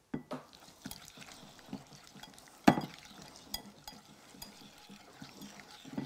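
Wire whisk stirring thick tahini sauce in a bowl, its wires clicking and clinking against the sides. A single louder knock comes about two and a half seconds in.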